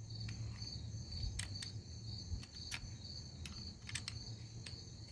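Crickets trilling steadily in the background, with a handful of small sharp clicks as an Allen key turns the CO2 piercing screw in the grip of a Colt M45 CO2 BB pistol.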